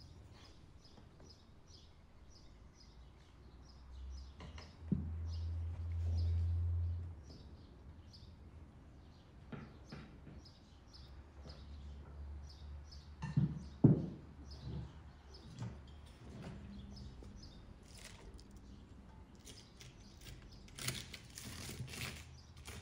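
Small birds chirping over and over in the background while garlic, beet pieces and herbs are dropped and packed into a large glass jar. Two sharp knocks come about fourteen seconds in, and near the end there is a rustle as hands press the vegetables down into the jar. A low hum rises for a couple of seconds about five seconds in.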